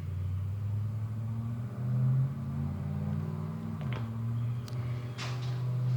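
A low, steady motor or engine drone that starts abruptly and shifts pitch a couple of times, with a few light clicks over it.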